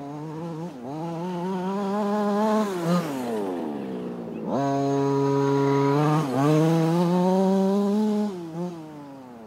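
Two-stroke petrol engine of a 1:5-scale Kingmotor T2000 RC car with a dual-pipe exhaust, revving as the car drives. The note climbs, falls away about three seconds in, then jumps up and is held high for several seconds with a brief dip. It drops back down near the end.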